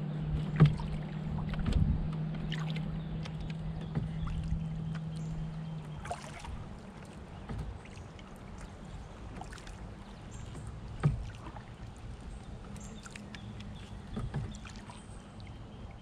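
Canoe being paddled: water moving along the hull, with a few sharp knocks, the loudest just under a second in and about eleven seconds in. A low steady hum is heard through the first six seconds and then stops.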